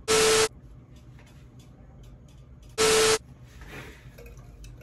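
Two short, loud bursts of TV-static hiss with a steady hum tone inside, each about half a second long and about three seconds apart: an edited-in static glitch sound effect.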